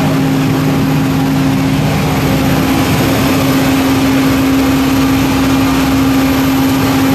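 Steady, loud drone of running machinery in an aircraft hangar, carrying a constant low hum. A second, lower hum drops out about two seconds in.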